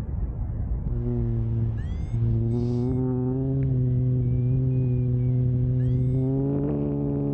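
Background music: a sustained low droning synth chord with short chirping sweeps high above it, fading in over wind rushing on the microphone in the first second.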